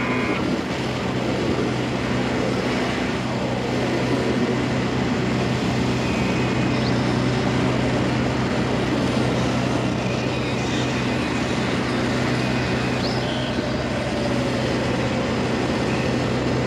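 Abstract noise-rock recording from a 1983 cassette: a dense, steady wash of noise over a low drone, with a few faint, brief high tones.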